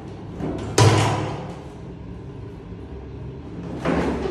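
A sudden sharp thump about a second in, and another thump near the end, with a low steady hum underneath.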